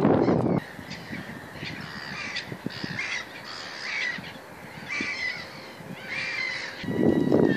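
A bird giving a series of harsh cawing calls, about one a second. Wind buffets the microphone at the very start, stopping abruptly, and again near the end.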